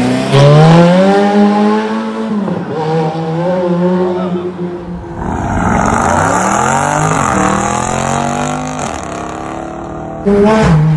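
Sports car engines revving hard. First a Ferrari V8 climbs in pitch as it pulls away and then holds its revs. About halfway, another car's engine rises and falls in revs over tyre noise as it turns. Near the end, a different engine comes in suddenly, holding a steady note.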